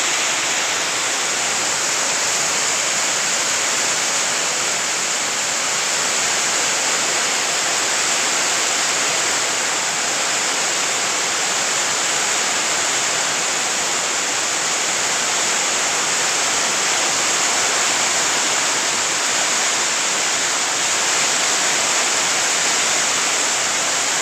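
Heavy rain falling in a steady downpour: an even, unbroken hiss.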